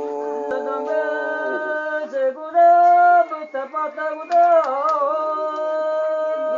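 Unaccompanied voices singing long held notes that slide from one pitch to the next.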